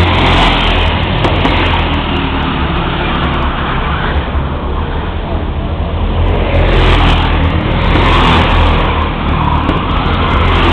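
Several go-kart engines racing round the track, their pitch rising and falling as karts speed past and accelerate out of the corners, over a steady low rumble.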